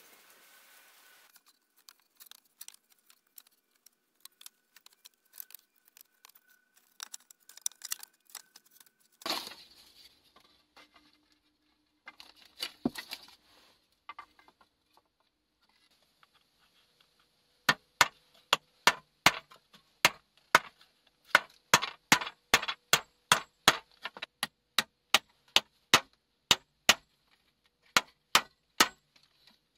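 Scattered light taps and clicks, then, from a little past halfway, a steady run of sharp strikes, about two and a half a second.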